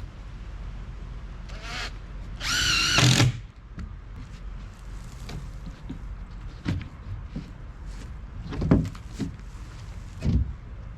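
Power drill running for about a second with a wavering whine, as a screw is driven into the shed's base boards. Later come three separate thumps.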